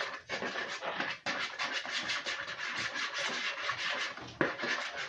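Spoon stirring sauce in a mixing bowl, scraping against the bowl in a fast run of strokes.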